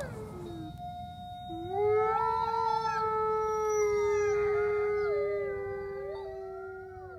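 Wolves howling in chorus: several long, steady howls at different pitches overlapping, joining in one after another within the first two seconds and fading out near the end.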